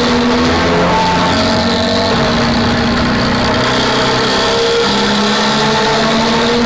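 Vehicle engine idling through a loud exhaust with a deep, snoring ('ngorok') note.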